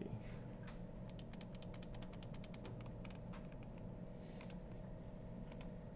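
A computer mouse's scroll wheel ticking in a quick, evenly spaced run for about two seconds as the view is zoomed in, then a few separate single clicks, over a faint steady hum.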